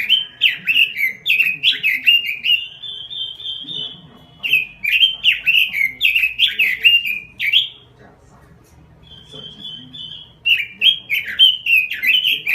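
Red-billed leiothrix (Pekin robin) singing in full voice: three phrases of quick, sweet downslurred notes, with a thin held high note after the first phrase and a short pause before the last.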